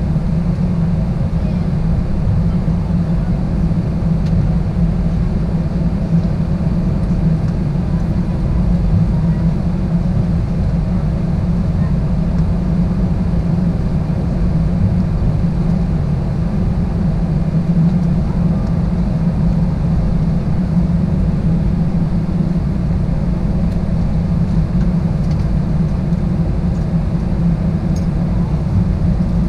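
Steady cabin noise inside an Airbus A320-211 taxiing slowly to the gate, heard from a window seat behind the wing: its CFM56 jet engines running at taxi idle with an even low hum.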